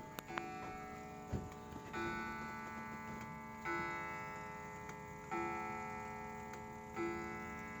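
Hermle mechanical wall clock movement ticking steadily, a beat about every one and a half seconds, each beat leaving a faint metallic ringing hanging on.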